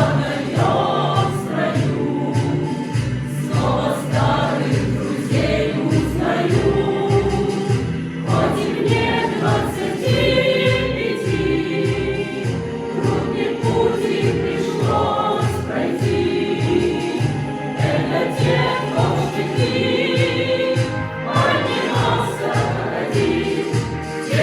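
A choir singing a song over instrumental backing with a steady beat.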